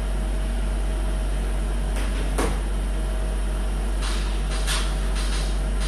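Steady low electrical hum, with a sharp click a little after two seconds in and a few soft knocks between about four and five seconds in.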